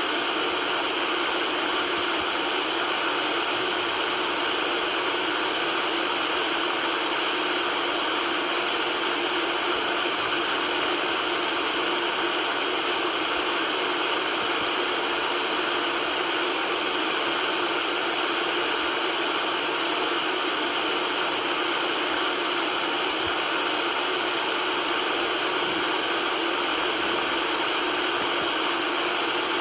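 Steady white noise, an even hiss with little low rumble, unchanging throughout.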